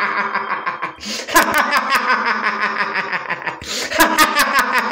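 Loud, sinister laughter, a devil's laugh sound effect, in repeated bursts of rapid 'ha-ha' pulses, with a new burst about a second in and another near the end.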